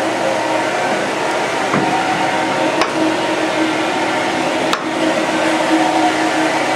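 Steady drone of a research ship's machinery and ventilation, a constant hum with several held tones over a broad hiss. A few sharp clicks or knocks cut in, about two, three and five seconds in.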